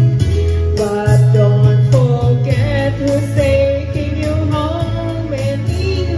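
A woman singing a melody into a handheld microphone over instrumental backing music with a steady bass line.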